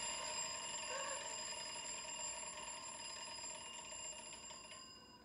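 Sustained, bell-like synthesizer chord from a horror film score: several high tones held together, fading slowly away, with one tone sliding slightly lower near the end.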